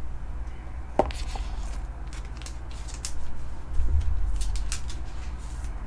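A trading card and its clear plastic sleeve being handled: light rustles, scrapes and a sharp click about a second in, with a dull bump about four seconds in.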